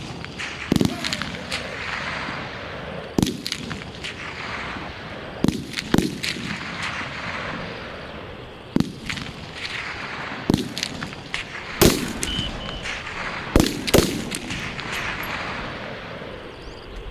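Rifle shots on a live-fire range: about ten single shots at irregular intervals, each followed by a rolling echo.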